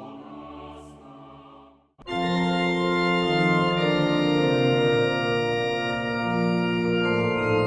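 Organ music: a held chord fades out, a moment of silence, then about two seconds in a full, loud organ passage begins, with sustained chords over a slowly moving bass line.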